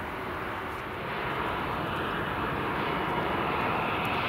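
Airbus A320-214's CFM56 jet engines heard from outside as the airliner rolls out along the runway after touchdown. A steady jet rush that swells about a second in and stays loud as the aircraft draws closer.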